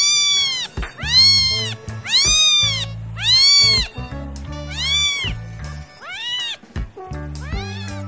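A cat meowing over and over: about seven short meows, each rising and then falling in pitch, roughly one a second, over background music.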